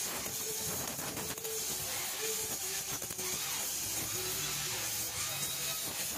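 Gas welding torch flame hissing steadily while filler rod is melted onto a cast aluminium engine crankcase.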